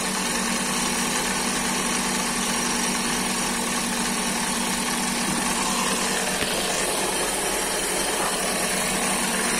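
Chevrolet Ecotec engine in a Chevy Aveo idling steadily on its first run after being swapped in. The mechanic hears a noise in it.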